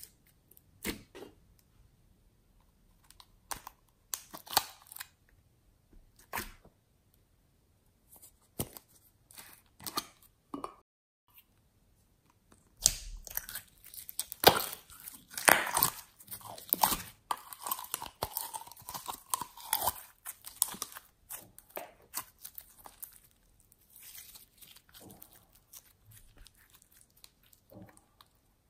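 Glossy gold slime being squeezed and folded by hand, giving sticky clicks and pops. The pops are sparse at first, turn into a dense run of crackling a little under halfway through, then thin out again.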